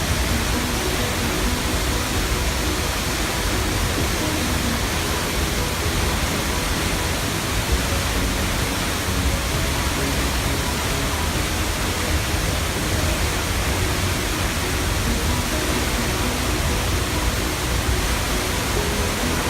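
Waterfall crashing down, a steady, loud rush of falling water.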